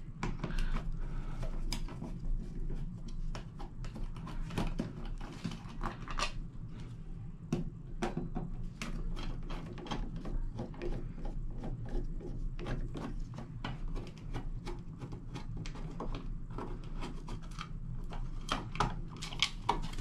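A hand screwdriver backing out the screws of a wall switch's plastic cover plate: a stream of small, irregular clicks and scrapes of metal and plastic as the plate is worked off, over a steady low hum.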